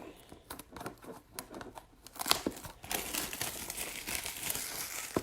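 Plastic wrapping on a trading card box being torn and crinkled. A few light taps and clicks come first, then steady crinkling and tearing from about two seconds in.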